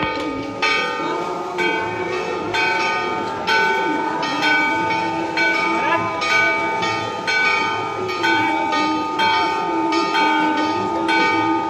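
Temple bells rung during aarti, struck about once a second, the ring carrying on between strokes, over crowd voices.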